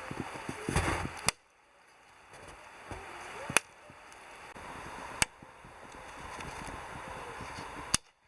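Four sharp knocks, about two seconds apart, over a low background hiss.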